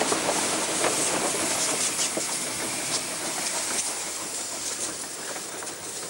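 Half-size replica of the K-1 Garratt, a 15-inch gauge steam locomotive, passing close by with a steady hiss of steam and scattered clicks of its wheels on the rails. It fades gradually as it moves away.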